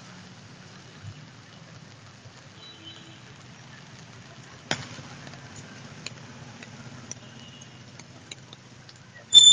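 Street traffic ambience on a flooded road: a steady low rumble of vehicle engines and wet-road noise, with one sharp click about halfway through and a brief loud high-pitched tone starting right at the end.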